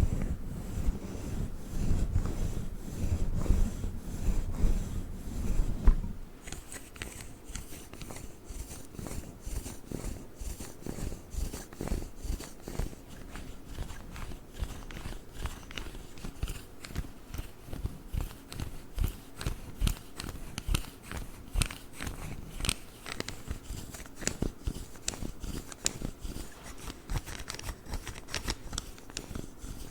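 A fluffy microphone cover and a pink roller worked against the microphone. For about the first six seconds there is a loud, low rubbing rumble. After that comes a quieter, fast run of crackly scratching and tapping.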